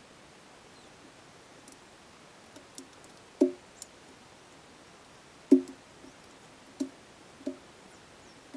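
Bike rack parts knocking and clicking as they are handled: a handful of sharp knocks with a brief ring, the two loudest about three and a half and five and a half seconds in, among lighter clicks.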